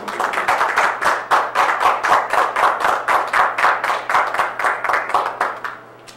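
Audience applauding, a dense run of hand claps that dies away near the end.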